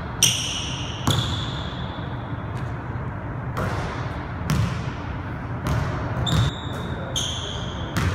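A basketball bouncing on a hardwood gym floor: a handful of irregularly spaced bounces, several followed by a short ringing note.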